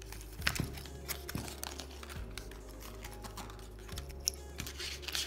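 Scattered light clicks and taps of a metal watch case and mesh strap being handled, with a rustle of paper cards.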